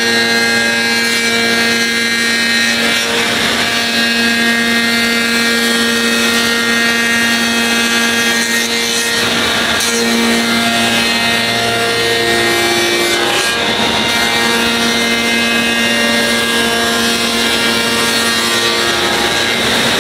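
CNC machining centre spindle driving a Leitz ProfilCut insert cutter through knotty alder to raise a panel: a loud steady whine of several held tones over the hiss of the cut, the tones shifting a few times as the cut goes on.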